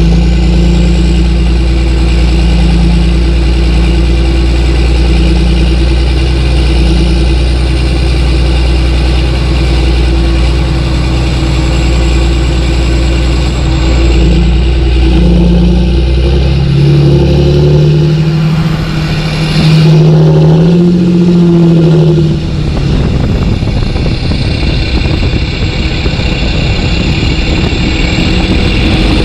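Engine-like motor running steadily, with its pitch rising and wavering for a few seconds past the middle, as if revving.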